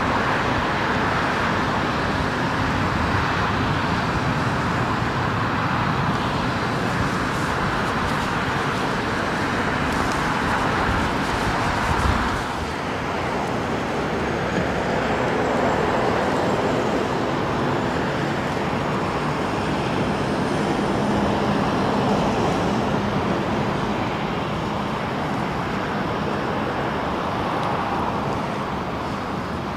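Steady jet engine noise from an airliner climbing away after takeoff. It cuts off suddenly about twelve seconds in, replaced by the slightly quieter, steady engine noise of a Discover Airlines Airbus narrowbody jet moving along the runway.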